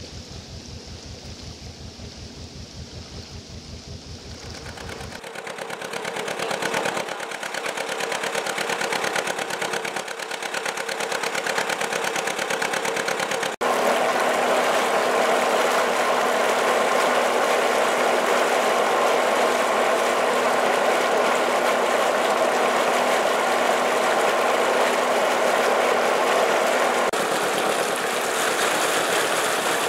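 A working narrowboat's diesel engine running with a steady, even beat: slow low pulsing while the boat sits in the lock, then under way, louder from about five seconds in, with water rushing and splashing past the bow.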